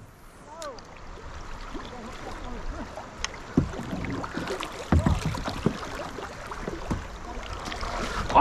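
Fast river current rushing and rippling around a kayak, with a couple of dull knocks midway through.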